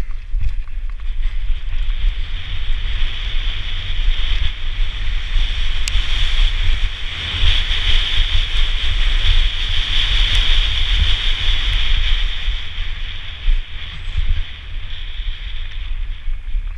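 Wind buffeting a helmet-mounted camera's microphone as a downhill mountain bike runs fast down a dirt trail, a deep rumble under a steady high hiss with a few sharp knocks from the bike. It eases off near the end as the bike slows.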